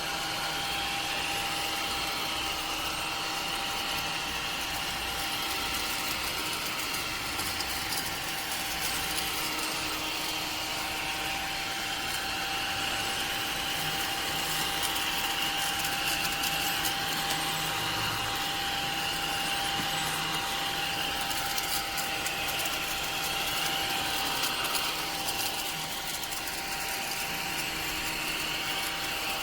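Small battery-powered ODISTAR desktop vacuum cleaner running steadily: a thin, constant motor whine with a higher hiss that wavers slightly in pitch.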